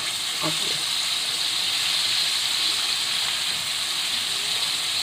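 Batter-coated chicken wings deep-frying in hot oil, a steady high sizzle.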